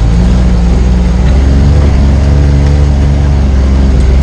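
A vehicle engine running steadily at close range, a loud, even low hum with little change in pitch.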